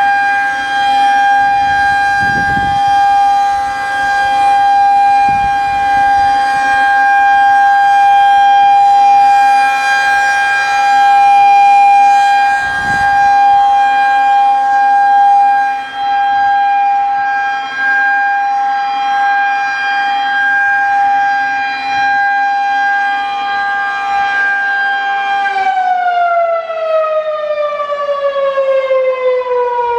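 Federal Signal 2001-130 rotating electromechanical outdoor warning siren sounding a steady single-tone alert. About 25 seconds in the pitch begins to fall steadily as the siren winds down.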